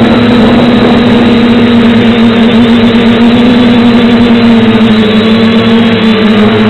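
FPV aircraft's motors and propellers buzzing loudly at a steady, slightly wavering pitch, picked up by its onboard camera microphone.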